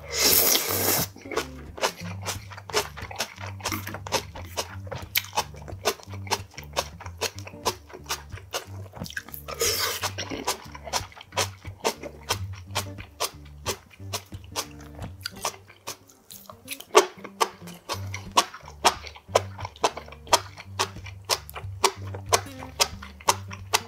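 Close-miked chewing and biting of grilled marinated pork back ribs: many short, sharp wet mouth clicks, with two longer noisy bursts near the start and about ten seconds in. Background music with a steady bass line plays underneath.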